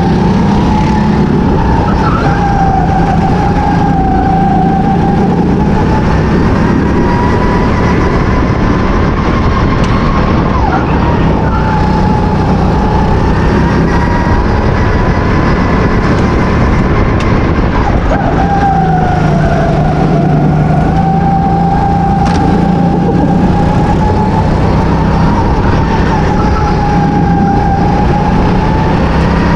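Go-kart engine running at high revs from the driver's seat, its pitch dipping sharply several times and climbing again as the kart laps the track, over steady rumble and rushing noise.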